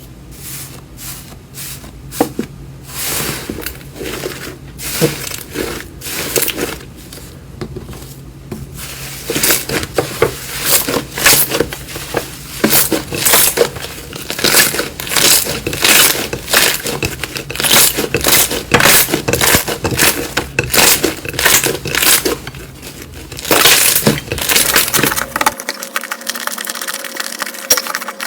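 Slime being handled and pressed by hand, giving a run of sharp crackling, popping clicks that grow denser and louder from about nine seconds in.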